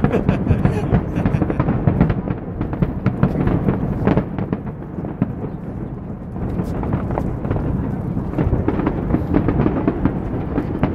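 A large fireworks display going off at a distance: a continuous low rumble of booms with frequent sharp cracks.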